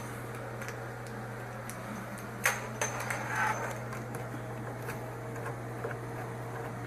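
Washer water-line hose fittings being handled: a sharp click about two and a half seconds in, then light clattering and a few faint ticks, over a steady low hum.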